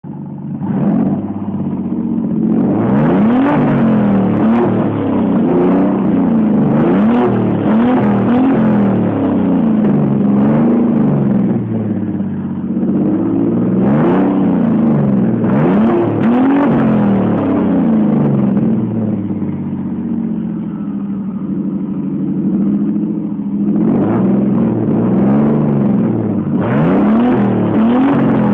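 BMW E46 M3's S54 inline-six, fitted with an HPF stage 2 turbo kit and an HPF titanium exhaust, free-revved while stationary and heard at the tailpipes. It goes through repeated quick blips, pitch shooting up and dropping back, with a calmer, steadier stretch past the middle before the revving picks up again near the end.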